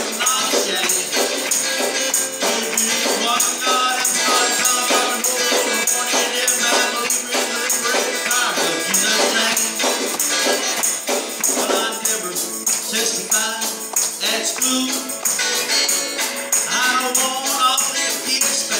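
Live gospel band playing an instrumental break between verses: electric guitar over a steady tambourine rhythm.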